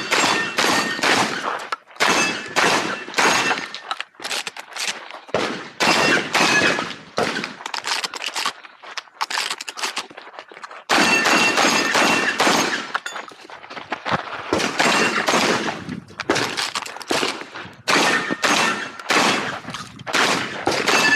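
Rapid shotgun fire during a timed IPSC stage run: strings of shots with echo after each one, broken by a pause of about two seconds near the middle.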